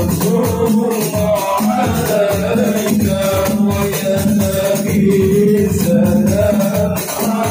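Male voices singing a sholawat (Islamic devotional song praising the Prophet) in long, wavering melodic lines into a microphone and loudspeaker, over steady rhythmic percussion with a shaken, rattling sound.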